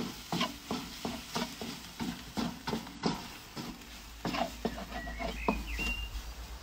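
Wooden spatula stirring and scraping egg fried rice around a Big Green Egg wok, in short knocking strokes about two to three a second.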